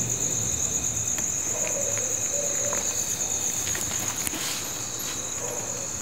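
Steady, high-pitched chorus of night insects, crickets, with a few faint clicks.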